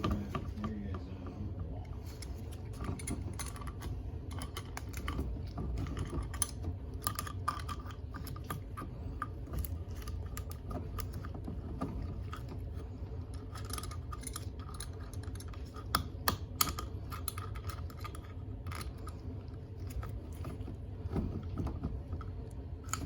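Irregular light clicks, taps and rattles of hands handling the plastic drain hose and drain pump parts under a dishwasher, over a steady low rumble.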